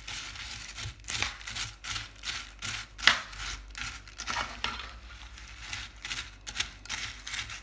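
A spoon stirring chocolate-coated cornflakes in a metal saucepan, making a run of irregular scrapes with one louder scrape about three seconds in.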